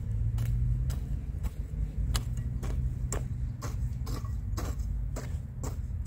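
Metal blade of a long-handled hoe chopping and scraping through dry, sandy soil between seedlings, a sharp click about twice a second, over a steady low rumble.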